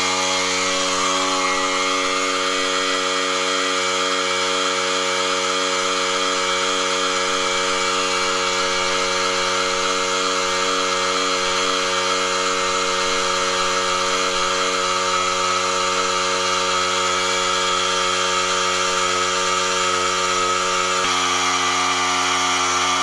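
Briggs & Stratton portable electric air compressor running steadily, its motor and pump filling the tank, powered through an inverter from a 48 V lithium battery. The tone shifts slightly near the end as the tank pressure builds.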